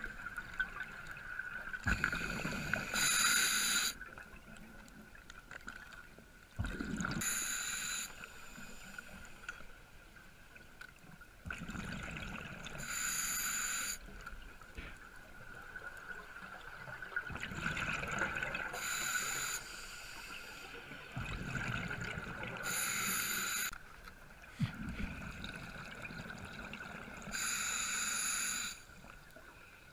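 Scuba diver breathing underwater through a regulator: the exhaled bubbles rush and gurgle in bursts about every four to five seconds, over a steady faint hum.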